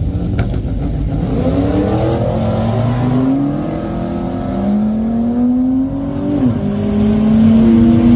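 Car engine accelerating hard at full throttle. Its pitch climbs steadily and drops back sharply twice as an automatic transmission upshifts, then climbs again.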